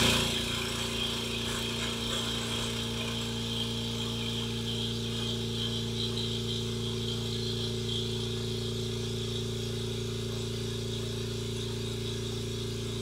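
Goodyear 8-gallon oil-free air compressor running just after being switched on, its motor and pump giving a steady, even hum. It is a little louder for the first moment, then holds level.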